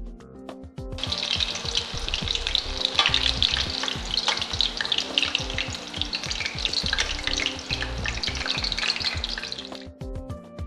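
Chicken pieces frying in hot oil: a dense sizzle with many small crackles that starts about a second in, grows stronger about three seconds in, and cuts off a second before the end. Background music plays underneath.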